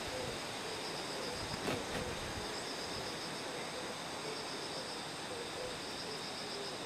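Outdoor evening ambience: insects trilling steadily over a constant hiss, with one faint click about a second and a half in.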